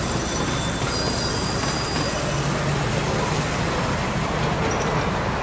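Ride-on miniature railway train running along its track: a steady rumble and clatter of the carriage wheels on the rails, heard from aboard the train.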